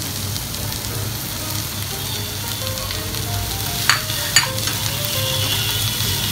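Mixed vegetables sizzling in oil in a nonstick pan while a wooden spatula stirs them, with two sharp knocks of the spatula against the pan about four seconds in.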